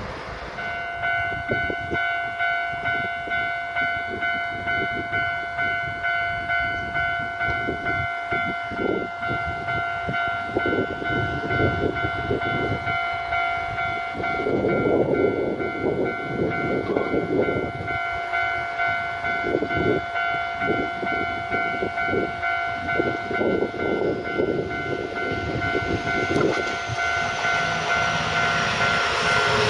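Japanese railway level-crossing warning bell ringing in a steady repeating pattern of electronic clangs, with the clatter and rumble of a passing train's wheels in the middle stretch. The bell stops near the end.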